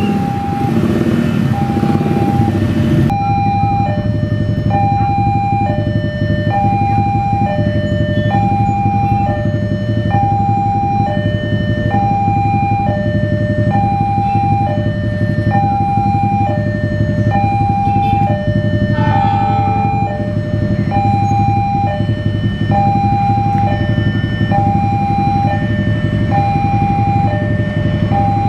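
Railway level-crossing warning alarm sounding its repeating two-tone signal, a high tone and a lower tone alternating steadily, over a continuous low rumble.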